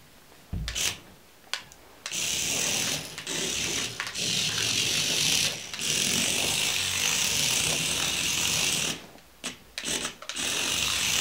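Tiny electric drive motor and gears of a 1:60 mini radio-controlled car whining in bursts as the throttle is pressed and let off: a short blip about half a second in, then long runs of several seconds with brief breaks, stopping about nine seconds in and starting again near the end.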